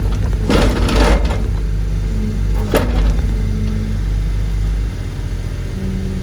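Heavy construction machine's engine running under load while a dock piling is pulled up, with two noisy bursts in the first second and a sharp knock near three seconds. The engine note eases about five seconds in.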